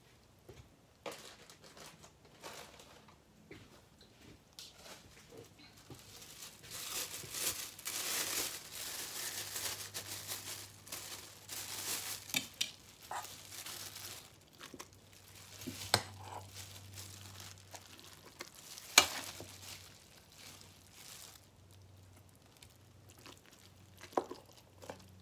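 Plastic oven bag crinkling and rustling as it is handled around a raw turkey, loudest through the middle, with two sharp clicks later on and a faint low hum underneath.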